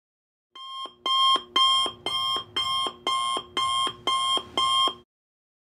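Digital alarm clock beeping, about two beeps a second. The beeping starts about half a second in and stops abruptly about five seconds in.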